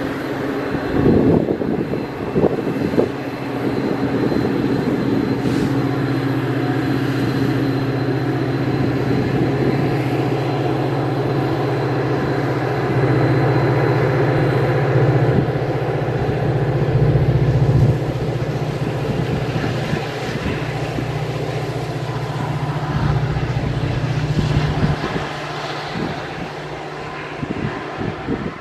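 Metra EMD F40PHM-2 diesel locomotive throttling up to push a commuter train out of the station, its engine running with a steady low drone that steps up in pitch and loudness about halfway through. A few loud knocks come in the first few seconds.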